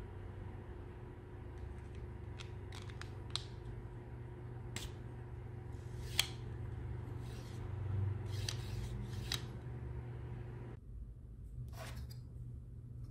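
Hard 3D-printed plastic crossbow parts clicking and knocking as they are handled and pressed together: scattered sharp clicks, the loudest about six seconds in, over a steady low hum.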